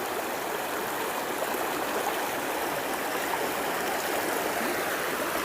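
Steady rush and babble of a woodland river's flowing water.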